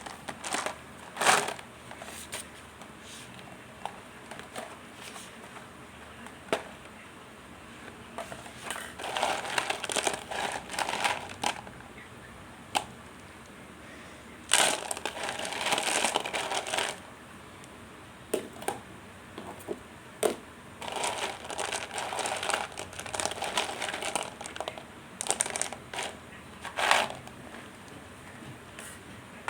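Mothballs and their packaging handled close up: several bursts of crinkling and crunching, each a second or two long, with a few sharp clicks between them.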